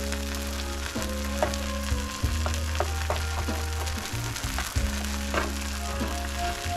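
Upo (bottle gourd) sautéing in a pan, sizzling steadily, with scattered sharp clicks and crackles.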